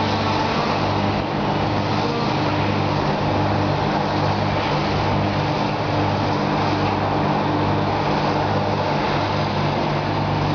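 A large engine running steadily, a low hum that pulses slightly, over a background of road noise.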